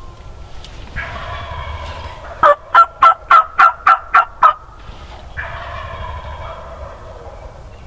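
Wild turkey gobblers gobbling from the roost: two rattling gobbles. Between them comes a loud series of eight sharp, evenly spaced turkey yelps, about three or four a second, which is the loudest sound.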